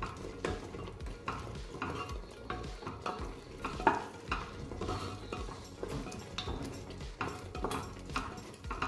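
Wooden spatula stirring thick tomato masala frying in a pressure-cooker pan, scraping and slapping against the pan about twice a second over a faint sizzle, with one louder stroke near the middle. The masala is kept moving so it does not stick to the bottom.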